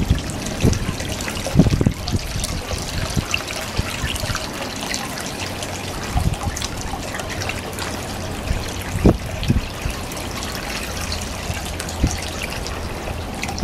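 Fresh water trickling steadily out of a boat's scupper where a manatee is drinking from the outflow, with a few dull low thumps now and then.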